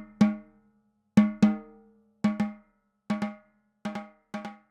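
A drum played with a stick in double strokes: pairs of quick rebounding hits, each stroke ringing briefly. The pairs come faster and softer as it goes on.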